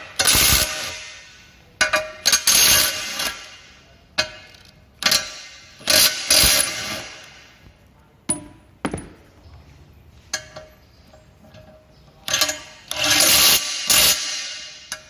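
Makita TW004G 40V cordless 1/2-inch impact wrench driving a bolt in short bursts of hammering, each trigger pull dying away as it stops, with a longer burst of about a second and a half near the end. Sharp metallic clicks come between the bursts.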